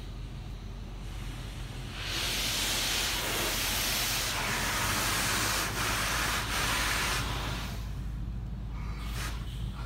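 Washworld High Velocity touchless car wash spraying its spot-free rinse over the car, heard from inside the cabin: a water hiss that swells to a loud spray about two seconds in and eases off again near the end, over a steady low hum.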